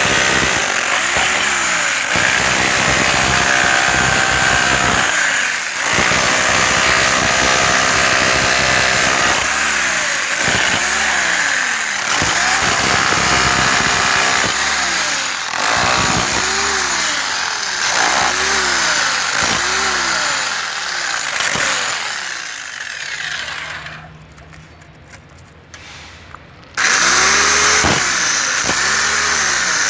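NR Tools 1800 W electric rotary hammer chiselling concrete: loud, continuous hammering with a motor whine that rises and falls every second or two as the bit bites. It dies down for a few seconds near the end, then starts hammering again at full level.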